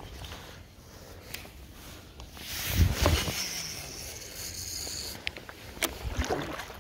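Fishing rod and reel being worked through a cast and retrieve, with scattered clicks and handling noise. About three seconds in comes a louder rush of noise, followed by a high hiss that lasts about two seconds.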